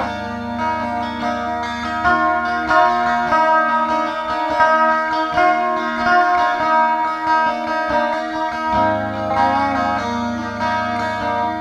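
Background music: plucked string instruments, guitar with bending slide-like notes, over a bass line that drops out for several seconds in the middle.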